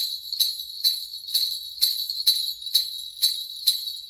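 A hand-held jingle bell stick, small metal jingle bells mounted on a wooden handle, shaken in a steady rhythm of about two shakes a second.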